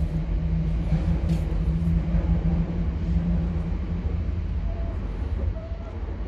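Low, steady rumble of a motor vehicle's engine running nearby, with a steady hum in it, easing off near the end.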